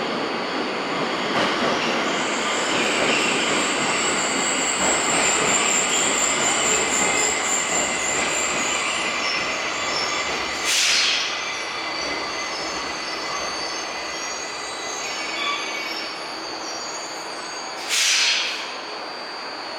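Tokyo Metro 1000 series subway train running through the platform, its wheels squealing in high, thin tones. Two short bursts of air hiss come about 10 and 18 seconds in.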